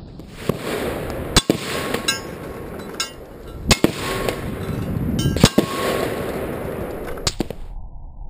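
Rifle fire from a PTR 91, a .308 semi-automatic battle rifle, heard from down by the targets: a string of sharp cracks, several in close pairs, as rounds strike a paper target and a hanging steel plate, which gives a brief metallic ring after some hits.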